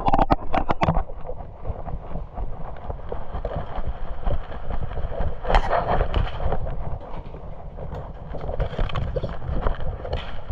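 Rustling and handling noise on the microphone with a low rumble, a quick run of clicks in the first second and a louder scrape about halfway through.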